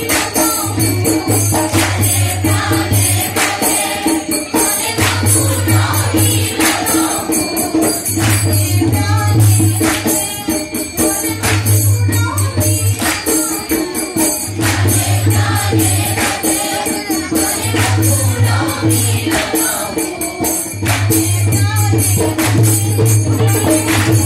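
Chorus of young voices singing an Assamese Holi song together, kept to a steady beat by hand claps and percussion.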